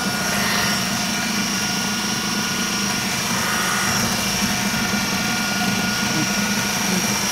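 Electric blender running steadily with a constant motor hum, blending crushed Oreo cookies with cream cheese.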